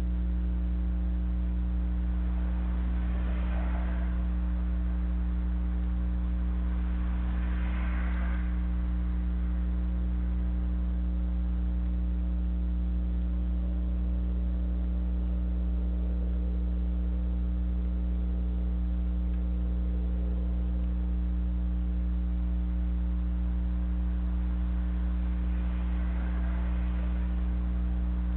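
Steady low electrical hum with a stack of overtones. Faint, brief swells of noise come about three and eight seconds in and again near the end.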